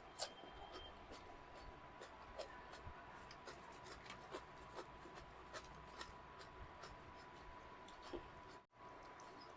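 Faint eating sounds: scattered small clicks and soft rubbing from chewing and handling food, over a faint steady high tone, with a brief cut-out near the end.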